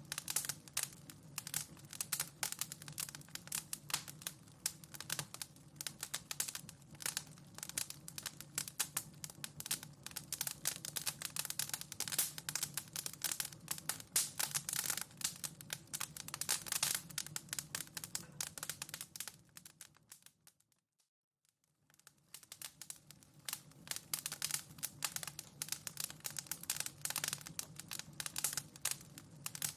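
Wood fire in a fireplace crackling and popping, a dense run of irregular small snaps over a low steady rumble. About two-thirds of the way through it fades away to silence for a second or so, then fades back in.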